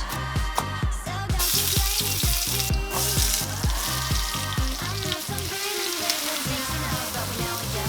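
Food sizzling and frying in hot oil in a pan, starting about a second and a half in, with a brief break, over background music with a steady beat.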